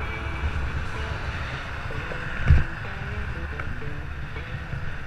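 Wind buffeting the microphone of a camera on a moving bicycle, a steady rumble with road noise beneath it. A single thump comes about halfway through.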